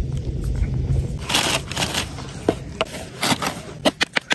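A wood fire crackles under a roti on an iron tawa, over a low rumble of wind on the microphone for about the first second. Near the end come quick rhythmic slaps as chapati dough is patted flat between the palms.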